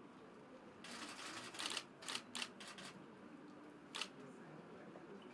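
Press DSLR camera shutters firing: a rapid run of clicks about a second in, a few more shots just after, and one last click about four seconds in.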